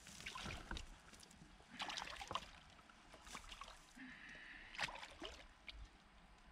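Shallow water splashing and sloshing as a wader moves and works with his hands at a boat's side, with a few light knocks.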